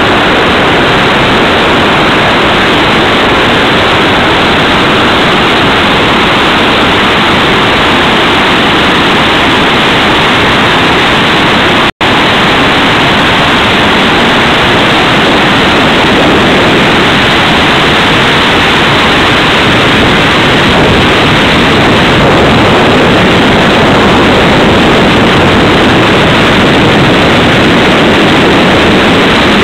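The rush of the Iguazú Falls' water pouring over the cliff: a loud, steady noise that cuts out for an instant about twelve seconds in.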